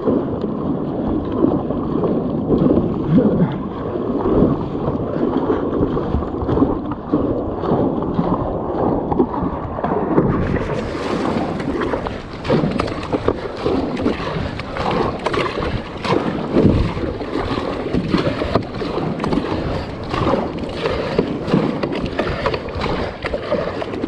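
Water sloshing and splashing against a fishing kayak's hull, with irregular knocks and wind on the microphone. The sound turns brighter about ten seconds in.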